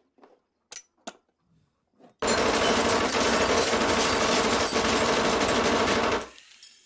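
A couple of sharp clicks, then a Micro Uzi submachine gun firing one long full-automatic burst of about four seconds: an accidental discharge. The burst stops abruptly and leaves a short ringing tail.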